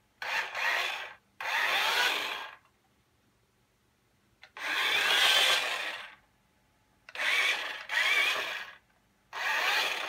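Toy remote-control lorry's small electric drive motor and gears whirring in short bursts of about a second, six times, the pitch climbing in each burst as it speeds up across the floor.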